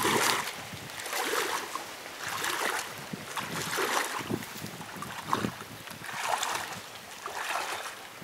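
Shallow pond water splashing and sloshing as two people wade through it, one swish with each step, a little more than once a second.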